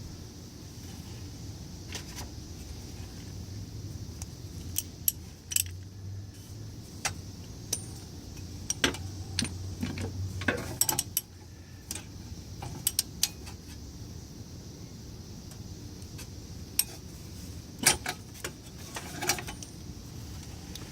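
Ratchet and socket clicking and clinking in short, irregular strokes as a back-up light switch is tightened into a Toyota Tacoma transmission. The clicks come in small clusters over a steady low hum.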